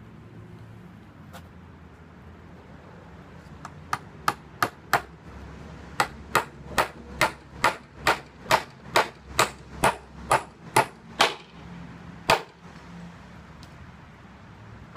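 Hammer driving nails into a wooden 2x4: four quick blows, a short pause, then a steady run of about a dozen blows at roughly two and a half a second, and one final blow.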